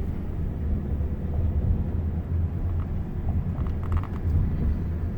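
Lincoln MKZ driving along a road, heard from inside the cabin: a steady low rumble of tyre, road and drivetrain noise, with a few faint ticks about four seconds in.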